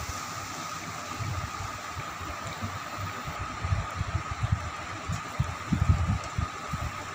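Chicken and potato curry sizzling in a steel kadai over a wood-fired clay stove: a steady hiss, with soft irregular low thumps as a steel spatula stirs the pieces.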